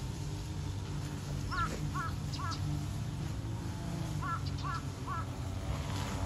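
A crow cawing: three short caws, then three more about two and a half seconds later, over a steady low hum.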